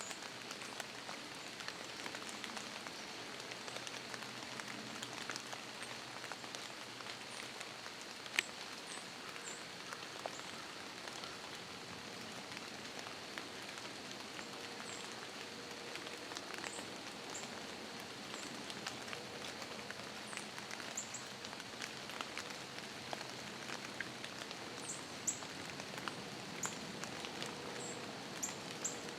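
Steady rain falling in woodland, an even hiss with many small ticks of drops striking, one sharper tick about eight seconds in. Faint short high chirps come and go throughout.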